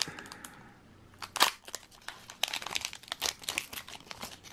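Foil booster pack wrapper crinkling and tearing as it is opened by hand: a run of crackles, the loudest about one and a half seconds in, growing denser in the second half.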